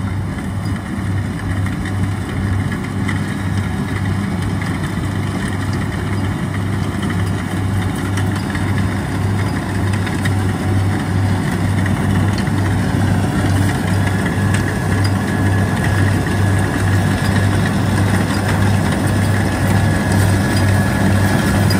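Kubota combine harvester's diesel engine running steadily as the machine cuts flattened rice, growing gradually louder as it approaches. A thin, steady higher whine joins the engine past the middle.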